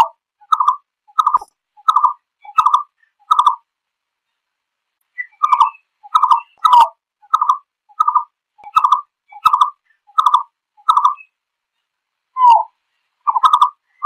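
A malkoha (Vietnamese 'chim phướn') calling to its flock: runs of short, repeated notes, about one and a half a second, broken by two brief pauses.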